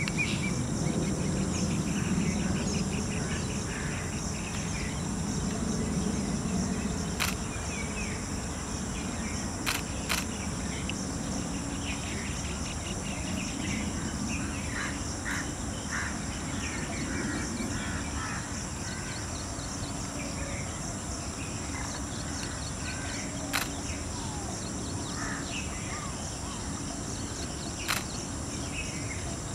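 A steady high-pitched insect chorus with many short bird chirps over a low rumble that is heaviest in the first few seconds, broken now and then by a sharp click.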